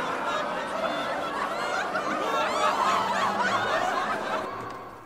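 Many overlapping voices snickering and chuckling together, a dense layered laughter that fades out near the end.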